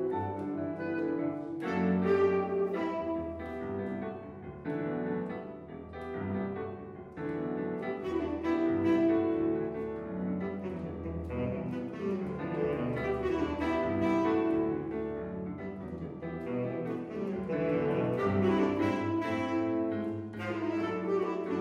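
Tenor saxophone and piano duo playing a slow tango-style piece: the tenor sax carries long sustained melody notes over the piano's chords.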